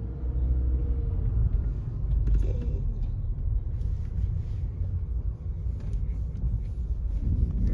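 Car driving and turning, heard from inside the cabin: a steady low rumble of engine and tyres.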